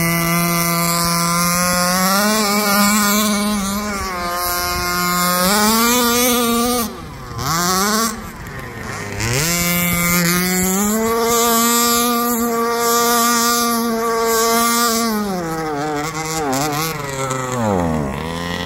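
36cc two-stroke petrol engine of a large-scale RC buggy running at high revs, its pitch rising and falling as the throttle is worked. The revs drop away sharply twice in the middle and again near the end.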